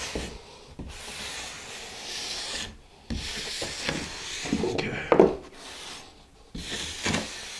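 A flat hand tool scraped across a damp sand-mix (deck mud) shower pan in about four long rasping strokes, knocking down a hump in the mortar bed to level it.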